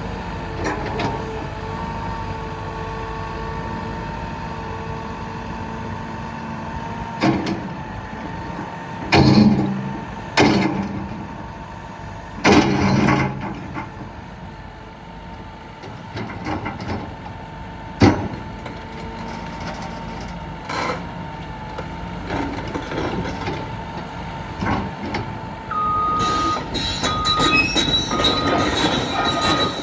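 Caterpillar 316E L hydraulic excavator running, its diesel engine holding a steady note under several loud short surges from the hydraulics and one sharp knock. Near the end a repeating beep starts along with a dense clatter and squeal, typical of the steel tracks as the machine begins to travel.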